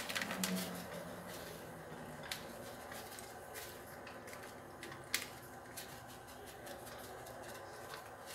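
Grated cheese being shaken out of a plastic packet over a casserole: faint rustling and crinkling of the packet, with a few sharp clicks scattered through it.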